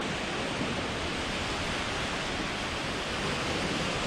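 Steady wash of small lake waves breaking on a pebble beach.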